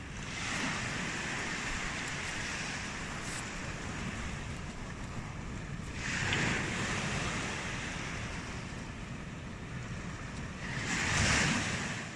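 Ocean surf breaking and washing up the shore, swelling three times: just after the start, midway, and near the end.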